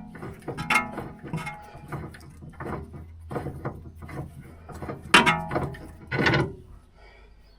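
Hand tools and metal parts clanking and knocking on a car's steering linkage while a track rod end is being taken off, with a few louder strikes that ring briefly, over a low steady hum.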